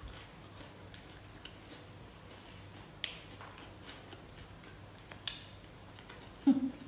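People chewing raw greens and fried fish: quiet mouth sounds with a few sharp crunchy clicks, and a brief vocal sound near the end.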